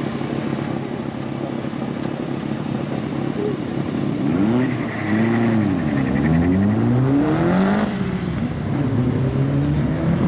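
Two drag-race cars, a BMW 335i E92 coupe with its twin-turbo six and a black hatchback, idling at the start line, then revving up and down several times. In the second half they launch and accelerate hard away, engine pitch climbing.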